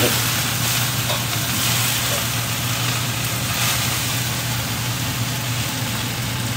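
Water spinach stir-frying in a wok with oil, ginger, garlic and chili: a steady sizzle over a steady low hum.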